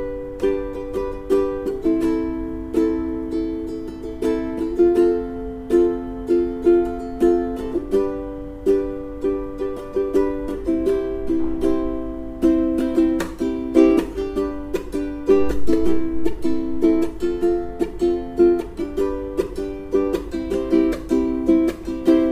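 Smiger K-U1 all-solid koa ukulele with fluorocarbon strings, playing chords in a steady strumming rhythm, with the last chord left to ring out near the end.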